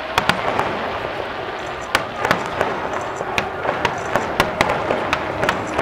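Aerial fireworks bursting: a rapid, irregular string of sharp cracks and pops starting just after the start.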